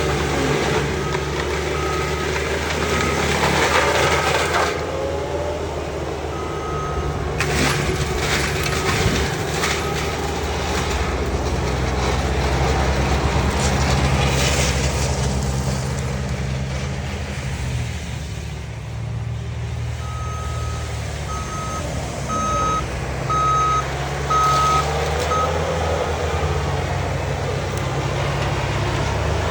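Wacker Neuson ST45 track loader's diesel engine running hard while its FAE forestry mulching head grinds up trees, with coarse crunching surges. A reversing alarm beeps in runs of quick, even beeps, at the start, around seven seconds in, and again near the end, as the machine backs up.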